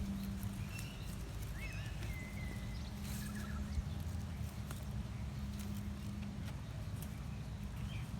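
Outdoor ambience: a steady low rumble with a faint hum, a few short bird chirps in the first half, and scattered soft clicks.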